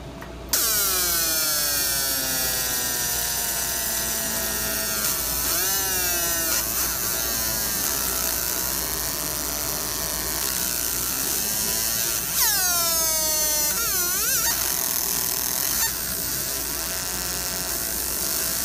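Fiber laser marking machine engraving: a buzzing whine made of many tones that keep sweeping and falling in pitch as the beam traces the design, over a hiss and a steady low hum. It starts abruptly about half a second in.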